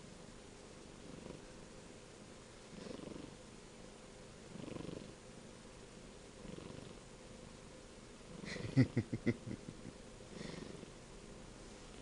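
Kitten purring while having its head petted, in soft swells with each breath and a louder run of rapid pulses about nine seconds in.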